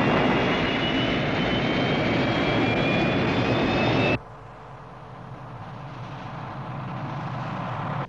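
Eagle spacecraft's rocket engines lifting off at full thrust: a loud rush with a thin rising whine. About four seconds in it cuts off suddenly to a quieter, steady engine rush that slowly swells.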